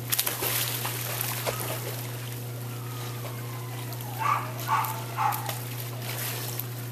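A dog jumps into a backyard swimming pool with a splash, then the water splashes and laps as it swims. About four seconds in, a dog gives three short excited yips, half a second apart, over a steady low hum.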